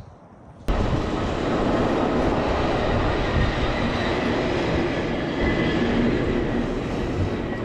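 Steady rushing wind and ride noise from riding a fat-tire e-bike at speed, starting abruptly about a second in.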